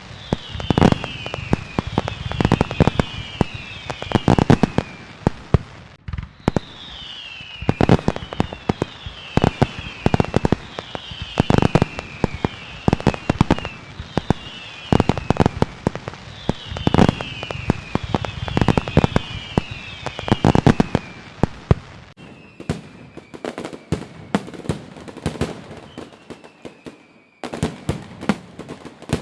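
Fireworks display: volleys of sharp bangs and crackling, with clusters of short whistles that fall in pitch.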